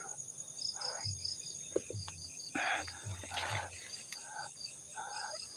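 Crickets chirping steadily, a high pulsed trill repeating several times a second, with a few fainter, softer noises in between.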